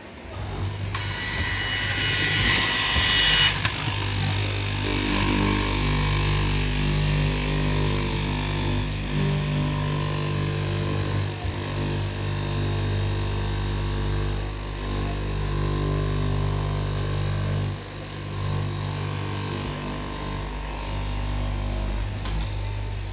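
Electric straight-knife cloth cutting machine running, its motor humming steadily as the blade cuts through a stack of layered denim along a paper marker. The motor starts about half a second in, with a brief higher whine over its first few seconds.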